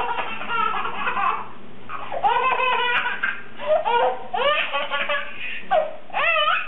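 A baby laughing hard in repeated bouts of belly laughter, each bout rising and falling in pitch.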